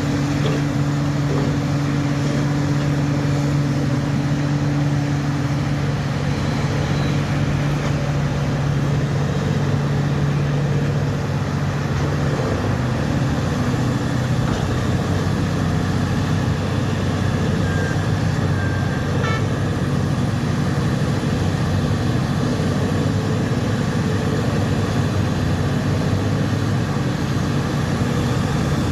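Large mining machinery running: the heavy diesel engines of a front-shovel excavator and a haul truck give a loud, steady drone, and the engine note changes about twelve seconds in.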